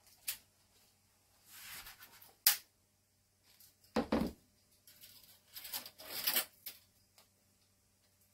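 Hands handling small items on a workbench: rustling, a sharp click about two and a half seconds in, and a dull thump around four seconds.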